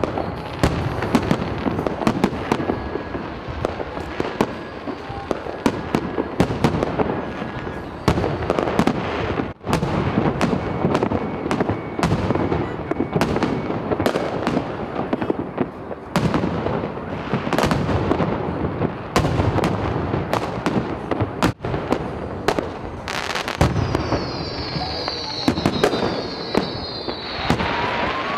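New Year's fireworks: a dense, continuous barrage of bangs and crackling bursts, with a high whistle sliding down near the end.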